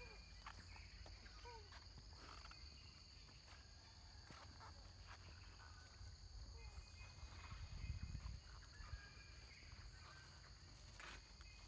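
Faint steady high drone of forest insects, with a few scattered faint chirps and a brief low rumble about eight seconds in.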